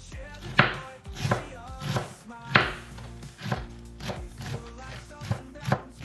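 Chef's knife chopping leafy greens on a wooden cutting board: a run of uneven knife strikes, about two a second, with quiet background music underneath.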